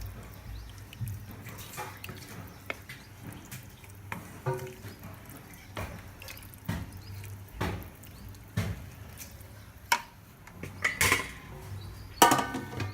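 Irregular water drips and light clicks over a low steady hum, with a couple of louder knocks near the end.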